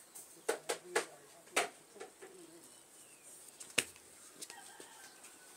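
A few sharp, short clicks: three in quick succession about half a second to a second in, another soon after, and a louder one near four seconds. Under them are faint bird calls.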